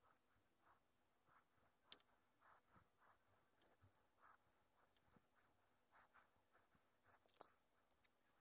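Near silence, with faint clicks and scraping as the small metal gears, pins and shims of a Traxxas X-Maxx differential are handled and separated by hand. One sharper click comes about two seconds in.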